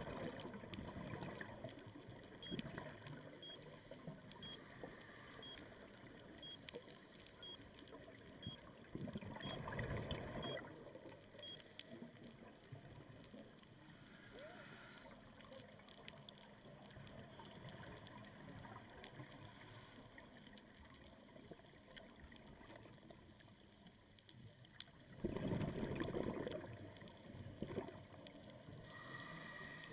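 Scuba diver breathing through a regulator underwater: short hissing inhalations and louder bursts of bubbling exhalation, a breath every ten seconds or so. From about two seconds in to about twelve, a faint short beep sounds once a second, ten times.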